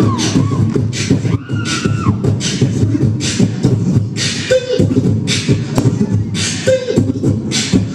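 Man beatboxing into a handheld microphone through a PA. A steady beat of low vocal kick drums and hissing snare and hi-hat sounds runs throughout, with a few short vocal pitch slides mixed in.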